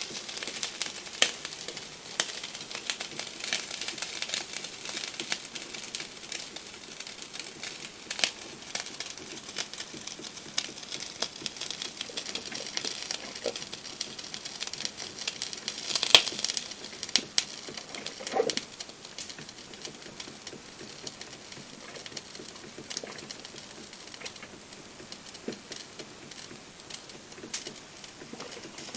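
Krups XP1500 drip coffee maker brewing: a steady crackly sputter and patter of hot water and dripping coffee, dotted with small clicks and the odd gurgle, one sharper click about 16 seconds in.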